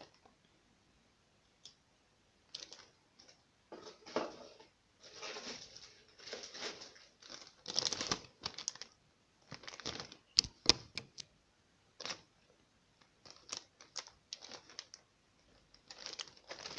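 Clear plastic bags of model kit parts being handled close to the microphone: crinkling in irregular bursts, with a few sharp clicks of parts knocking about ten seconds in.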